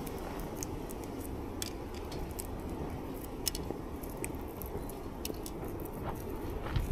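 Someone chewing food close to the microphone, with scattered small crisp clicks over a steady low rumble.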